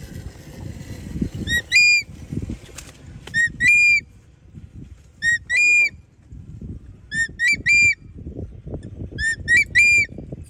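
A hawk-eagle giving shrill whistled calls: five bursts about two seconds apart, each of two or three short notes and a longer, higher one. A low rumble of wind and handling noise runs underneath.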